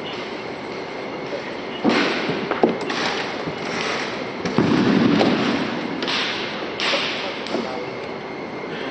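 A drill team's sharp, synchronized stamps and slaps, about seven in uneven rhythm from about two seconds in. Each echoes through a large gymnasium, and the loudest come about two and five seconds in.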